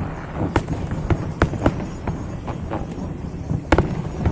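Aerial fireworks exploding: about seven sharp bangs at irregular intervals over a steady background rumble.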